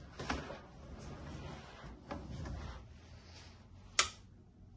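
Cup sealing machine being handled: sharp clacks near the start and about four seconds in, with softer rattling and shuffling in between.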